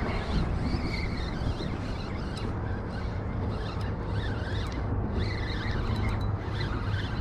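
Wind buffeting the microphone, a steady low rumble, with faint wavering high-pitched squeaks twice along the way.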